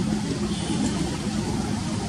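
Airbus A330-300's Rolls-Royce Trent 700 jet engines running at taxi power as the airliner rolls along the runway, heard from a distance as a steady low rumble.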